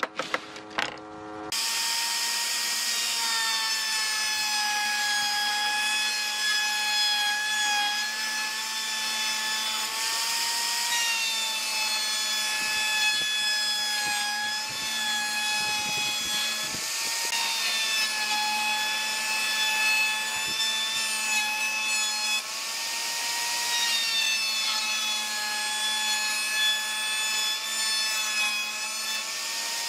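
Electric router mounted upside down under a bench, running with a steady high whine from about a second and a half in. Its pitch dips briefly a few times as the spinning bit cuts into a pine board.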